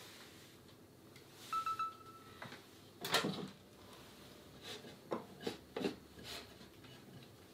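A microwave oven gives a short electronic beep. About three seconds in, its drop-down door clunks open, loudly. A few lighter knocks and scrapes follow as a glass bowl is slid out across the oven floor.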